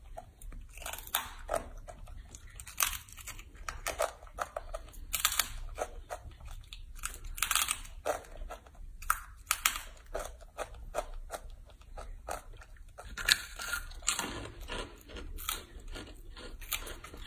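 Baby macaque biting and chewing crisp dried vegetable chips: an irregular run of sharp crunches, thicker near the end.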